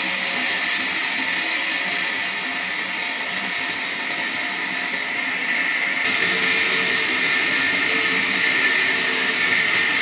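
Horizontal band sawmill running, a steady hissing whir from the machine. It shifts abruptly and gets a little louder about six seconds in.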